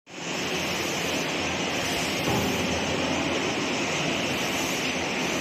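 Steady hissing of steam from an open licorice-root humidifying chamber.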